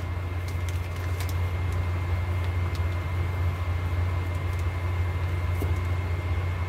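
Steady low hum, with a few faint ticks and light plastic-bag rustling as glutinous rice flour is poured into a plastic measuring cup.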